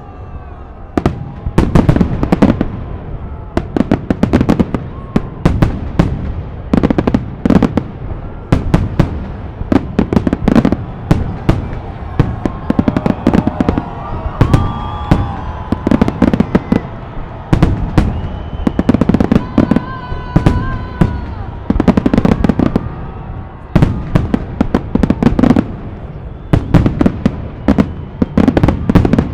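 Festive fireworks salute: a dense, unbroken series of aerial shell bursts, booms and crackles in irregular volleys, with brief pitched sounds from voices in the crowd near the middle and about two-thirds through.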